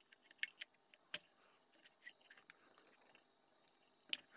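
Faint, scattered clicks and taps of a small plastic speaker casing being handled while its internal parts are worked loose, with a sharper click about a second in and another near the end.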